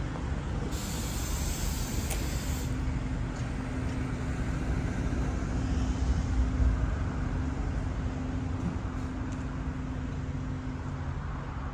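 Road traffic on a town street: a steady low engine rumble and hum from passing vehicles, with a short high hiss about a second in and a louder low rumble of a passing vehicle around the middle.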